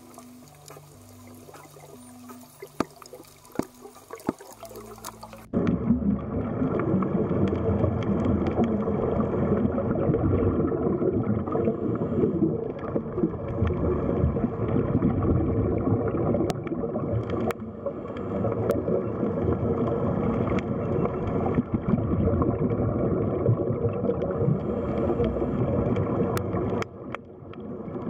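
Underwater water noise: a loud, steady gurgling wash that starts suddenly about five seconds in, after a few seconds of faint low sustained tones and scattered clicks, and dips briefly near the end.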